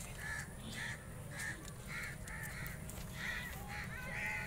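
A crow cawing over and over, about two caws a second, with a steady low rumble underneath.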